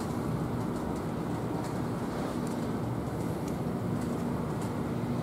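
Steady rumble of O gauge three-rail model trains running on the layout, with a low hum.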